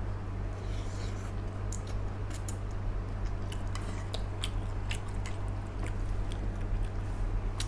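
A person chewing a mouthful of instant noodles, with many short wet clicks and smacks from the mouth over a steady low hum.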